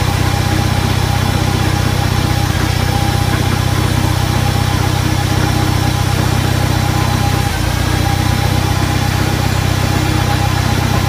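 International Harvester Cub Lo Boy's small four-cylinder flathead engine idling steadily shortly after a cold start on choke.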